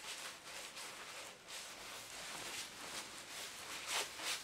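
Paper towel faintly rustling and rubbing over a copper pipe and its clip-on solder repair patch as excess flux is wiped off, with a slightly louder rub near the end.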